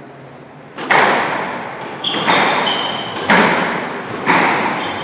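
A squash rally: sharp echoing smacks of the ball struck by rackets and hitting the court walls, about one a second, five or so in all. A few short shoe squeaks on the wooden court floor come about two seconds in.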